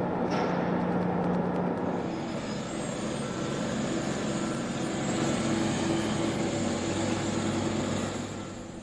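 Steady machinery noise: a continuous rushing, blower-like hiss over a low hum, whose pitch shifts about two seconds in.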